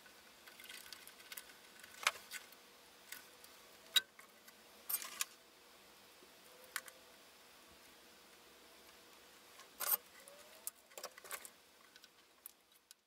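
Scattered light clicks and taps of small hand tools and wire against a metal amplifier chassis during soldering work, the sharpest about four seconds in and again near ten seconds.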